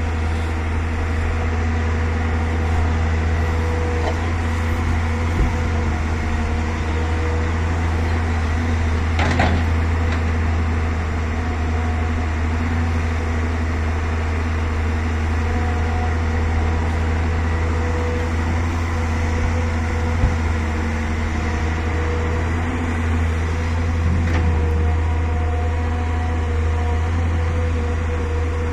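Volvo EC380DL excavator's diesel engine running steadily with a constant hum, broken by a few short knocks.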